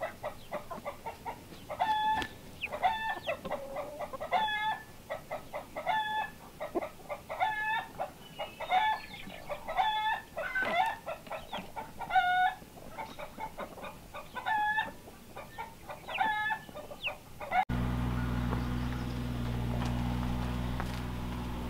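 Hens and chicks calling: a short pitched call repeated every second or two over lighter, quicker cheeping. About eighteen seconds in, this cuts off abruptly to a steady low hum.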